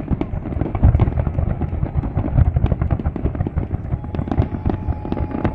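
Fireworks display going off in a dense, unbroken run of bangs and crackles, deepest and heaviest in the low booms. A faint steady tone joins about four seconds in.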